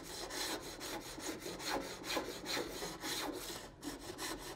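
A small block plane shaving the edge of a painted wooden drawer front in quick repeated strokes, about two or three a second.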